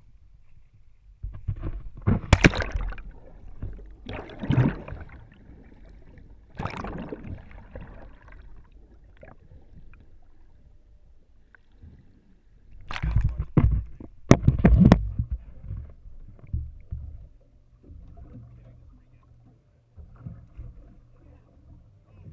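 Seawater splashing and gurgling around a pole-mounted GoPro as it is plunged into and pulled through the sea surface: a few loud splashes spread over the first several seconds, a cluster of sharp splashes about halfway through, and muffled underwater gurgling in between.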